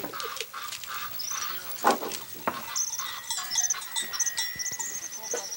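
Outdoor farmyard sound: livestock calling in short repeated cries, small birds chirping high, and a few sharp knocks of iron digging bars striking hard dry ground.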